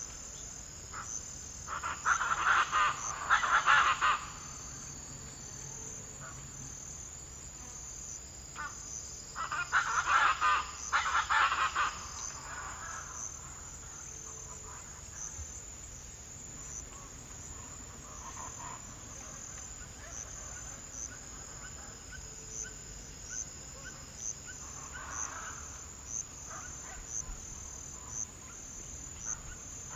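A steady, high-pitched chorus of crickets chirping in an even pulse. Over it, birds give two loud bursts of rapid calling, about two seconds in and again about ten seconds in, with fainter calls later.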